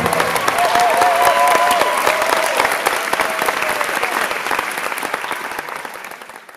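Audience clapping and cheering right after a song ends, with a few voices whooping in the first couple of seconds; the applause grows gradually quieter and fades out at the end.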